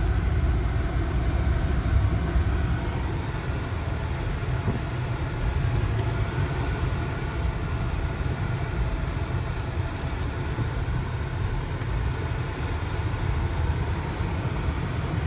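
1999 Toyota Camry on the move at low speed, heard from inside the cabin: a steady low rumble of engine and road noise.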